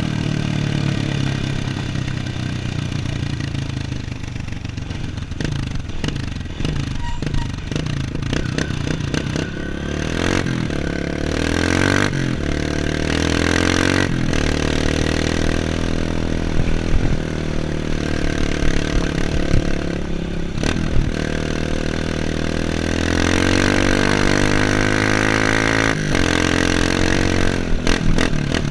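Off-road motorcycle engine running along a dirt trail, revving up and falling back again and again as the rider works the throttle, with occasional sharp knocks and clatter from the bumpy ground.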